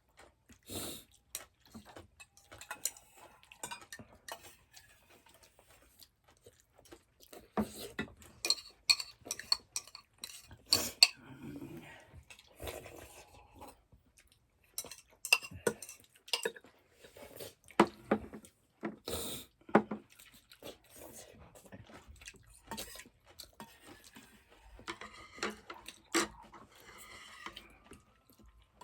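Cutlery clinking and tapping against dishes and bowls as people eat, in many short, irregular clicks with brief quieter gaps.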